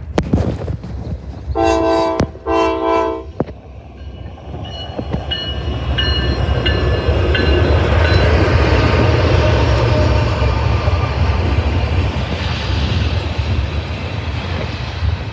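Norfolk Southern freight train passing close: the lead diesel locomotive sounds two short horn blasts about two seconds in, followed by a quick run of ringing tones. Then the locomotives rumble past loudly, giving way to the steady rolling of double-stack container cars.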